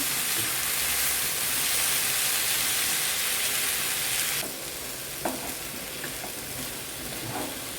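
Brinjal and potato pieces frying in oil in a pan, sizzling as they are stirred with a spoon to coat them in spice powders, with a few scraping clicks of the spoon. The sizzle drops sharply about four and a half seconds in and carries on quieter.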